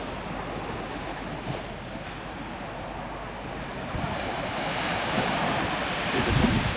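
Surf breaking and washing up a sandy beach, a steady rush that swells about four seconds in, with wind buffeting the microphone near the end.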